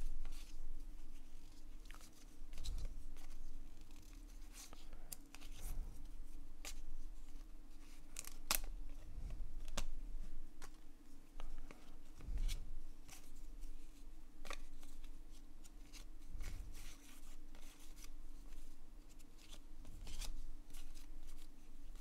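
1990 Upper Deck baseball cards being flipped through by hand, each card slid off the stack onto the next: an irregular run of light clicks and scrapes of card stock.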